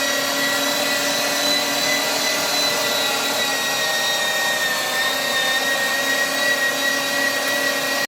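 Electric home meat grinder motor running steadily with a high whine while grinding diced beef; it cuts off abruptly at the end.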